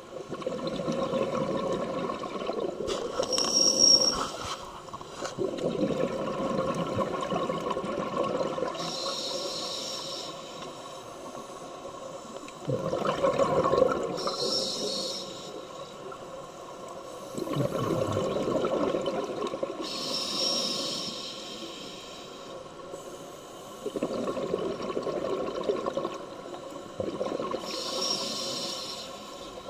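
Scuba diver breathing through a regulator underwater: a hiss on each breath in and bubbling on each breath out, repeating every five to six seconds.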